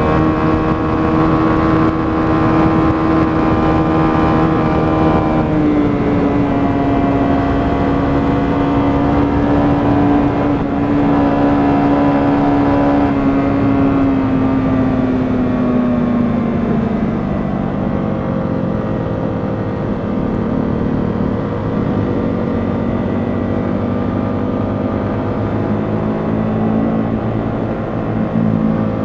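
125cc motorcycle engine running steadily under way. Its note dips slightly about five seconds in, then drops gradually about halfway through as the throttle is eased, and lifts a little near the end.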